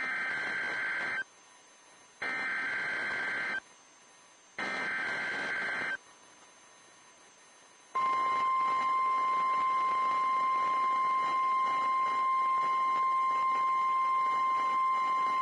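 NOAA Weather Radio weekly test signal: three bursts of SAME digital header data, each a little over a second of buzzy warbling, with hiss between them. About eight seconds in, the steady 1050 Hz warning alarm tone begins.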